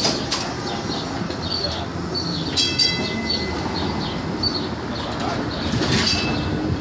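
A TTC CLRV streetcar passing close by on steel rails, a steady rumble with wheel clatter, and a brief high squeal from the wheels about two and a half seconds in.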